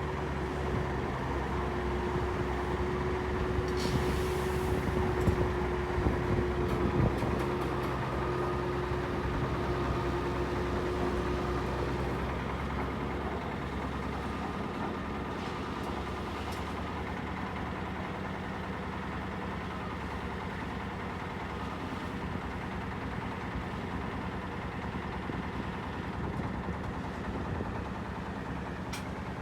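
Heavy engine running steadily at idle, with a steady higher tone over it that stops about twelve seconds in.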